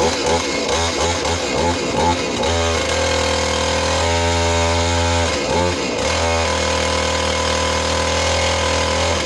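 Husqvarna 450e chainsaw's 50 cc two-stroke engine revving. A few quick throttle blips, then held at high revs, dropping briefly about six seconds in before revving back up and holding.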